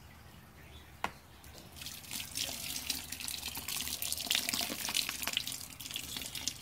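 Hot sparge water poured from a glass measuring cup onto a spoon, splashing onto the grain bed in a cooler mash tun: manual fly sparging to keep a layer of water on top of the grain. A light click about a second in, and the pour begins about two seconds in.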